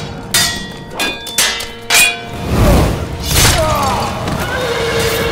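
Sword-fight sound effects: four sharp metallic clashes in the first two seconds, then a heavy whooshing thud, over a dramatic music score.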